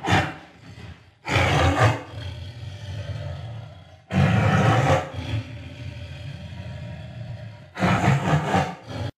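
Tiger roaring: four loud roars a few seconds apart, with a lower rumbling growl running between them.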